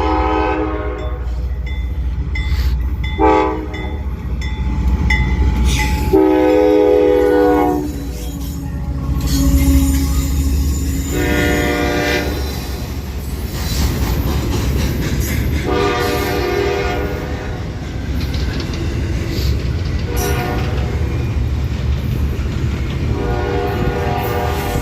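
CSX freight locomotive's air horn sounding in a string of about seven blasts, some short and some held a second or two, over the steady rumble of a fast-moving freight train.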